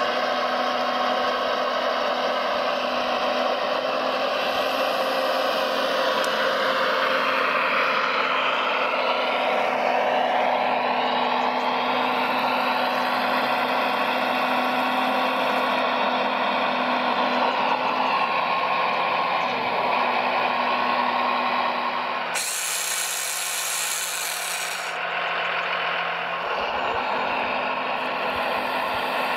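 Whine of a model RC excavator's electric motors and hydraulic pump working, the pitch gliding up and down as the machine moves. The sound changes abruptly about two-thirds of the way through.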